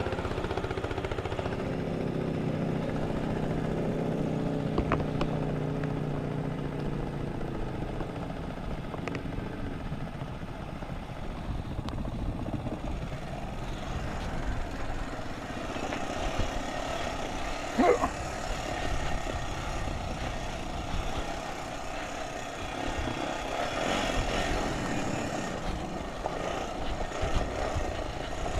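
ATV engines running as the quads ride across loose gravel, with a rushing noise throughout. A brief sharp squeal about two-thirds of the way through is the loudest moment.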